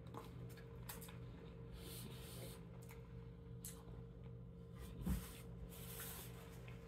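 Faint eating sounds: instant ramen noodles slurped and chewed off a fork, with small clicks of the fork and a single soft knock about five seconds in. Near the end, a paper napkin rubs against the mouth. A low steady hum runs underneath.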